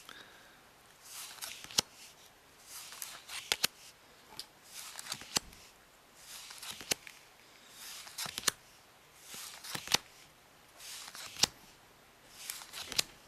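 Bicycle playing cards dealt one at a time onto a pile on a cloth-covered table: each card slides off the hand with a short swish and lands with a sharp snap, about every second and a half.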